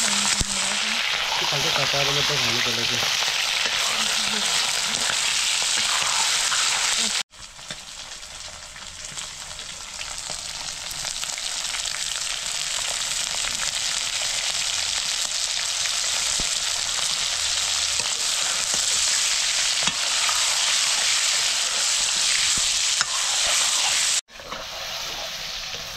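Chicken curry sizzling and frying in a hot pan while it is stirred, a steady hiss. The sound cuts out abruptly twice, about 7 seconds in and near the end, then resumes.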